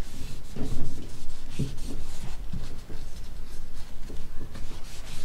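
Oil-soaked cloth wipe rubbed back and forth over the FX9 pistol's receiver in quick irregular strokes, with a few dull knocks from handling the gun.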